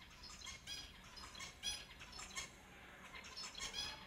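Finches calling: a quick, uneven series of short chirps, about three a second, with a short pause in the middle.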